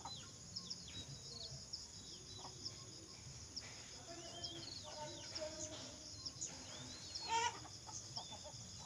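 Birds calling and chirping: many short high sweeping notes keep overlapping, with one louder call about seven seconds in.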